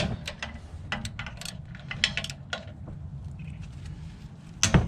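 Ratchet wrench clicking in short irregular runs as the bolts holding a trailer's manual tongue jack to the frame are loosened, over a steady low hum, with one louder knock near the end.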